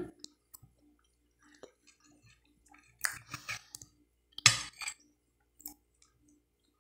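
Chewing and mouth sounds, with a metal spoon clinking and scraping against a glass plate a few times, in short separate bursts with quiet gaps between them.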